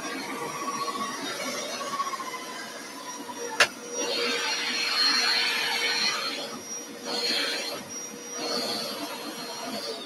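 Hoover Power Scrub upright carpet cleaner running on carpet, a steady motor whine under a rushing suction sound. A sharp click comes about three and a half seconds in, then the rushing swells and fades several times as the machine is pushed back and forth. Right at the end the whine begins to fall as it is switched off.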